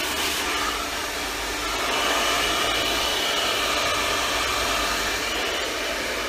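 Handheld hair dryer blowing steadily on hair lifted over a round brush: a continuous rush of air with a faint high whine in it.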